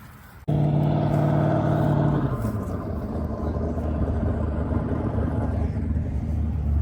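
Car engine starting abruptly at high, steady revs, then dropping in pitch to a lower, rougher rumble about two seconds in, which then runs on.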